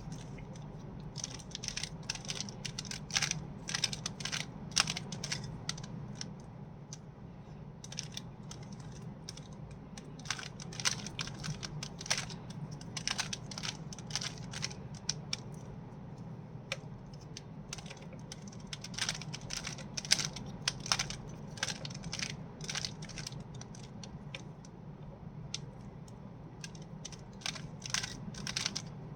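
Plastic Rubik's cube being turned by hand: quick runs of clicking and clacking as the layers are twisted, with short pauses between runs.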